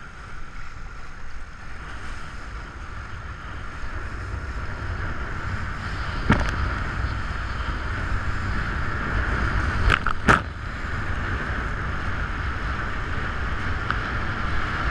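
Kiteboard planing over choppy water: wind buffeting the action-camera microphone and a steady rush of water under the board, with a sharp knock about six seconds in and two close together about ten seconds in as the board or camera takes hits from the chop.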